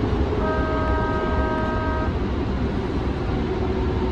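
Siemens light-rail trolley running along the track with a steady rumble and a steady motor whine, its horn sounding once for about a second and a half, starting about half a second in.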